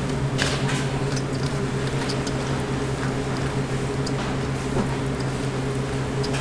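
Silicone spatula stirring thick tomato sauce through shredded cabbage and diced ham in a stainless steel bowl, making wet squishing and scraping noises with short clicks now and then. A steady machine hum runs underneath.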